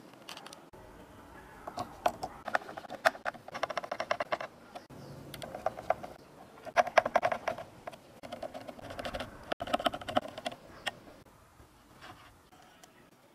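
Small screws being turned with a hand screwdriver into PVC parts and a circuit-board terminal block: several bursts of rapid ticking, each lasting about a second.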